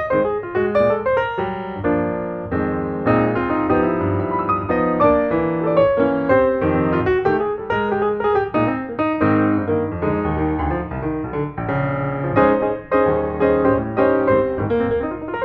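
Piano music, a run of quick notes over lower chords without pause.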